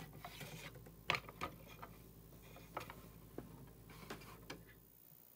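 Light, irregular clicks and taps of small plastic toy parts being handled, over a low hum that cuts off near the end.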